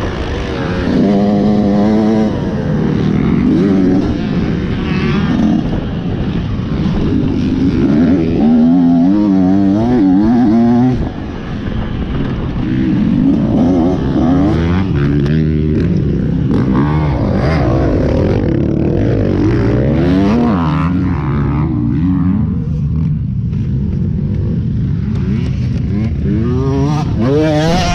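Motocross dirt bike engine heard up close from the rider's own bike, revving up and down as it is ridden hard, its pitch rising and falling again and again through throttle and gear changes. It briefly drops off about eleven seconds in.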